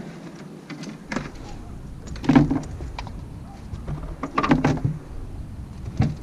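Knocks and thumps, with short creaks, from a large blue catfish being handled on a boat while it is weighed. The loudest knock comes about two seconds in, a cluster follows about four and a half seconds in, and a last sharp knock comes near the end.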